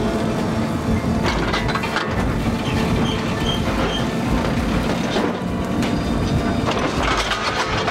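Bale chaser at work: its engine running steadily while the metal loading arm and frame clank and knock a few times as a big square straw bale is lifted onto the stack.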